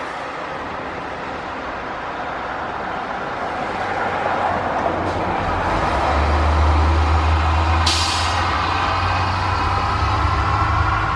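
School buses driving past, their diesel engines droning louder as one comes close about six seconds in. About eight seconds in comes a short sharp hiss of air, like an air brake.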